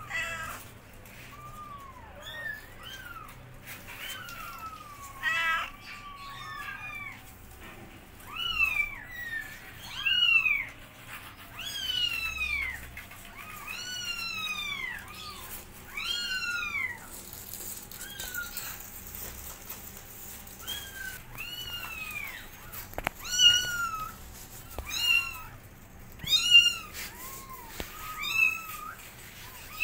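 Newborn kittens meowing over and over: short, high calls that rise and fall in pitch, several kittens calling at once in places.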